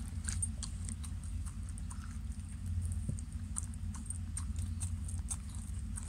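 A Shiba Inu eating soft cake out of a bowl: licking and chewing with many quick, irregular clicks, over a steady low hum.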